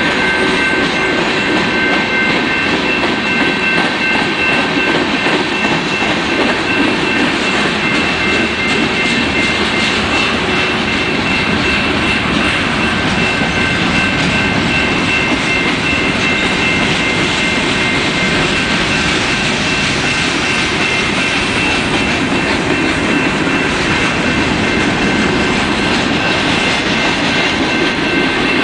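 Freight train of covered hoppers and tank cars rolling past at a grade crossing: a steady, continuous rumble of wheels on rail, with several steady high tones sounding over it.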